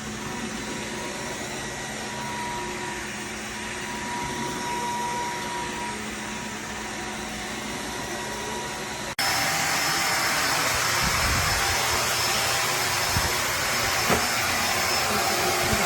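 Kenmore Intuition upright vacuum cleaner running steadily. About nine seconds in, the sound cuts abruptly to a louder, hissier steady noise.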